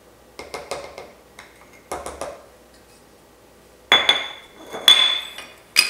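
Small metal measuring cup clicking as it scoops brown sugar, then three sharp ringing taps of the cup against the rim of a stainless steel mixing bowl, knocking the sugar out, each tap leaving a brief metallic ring.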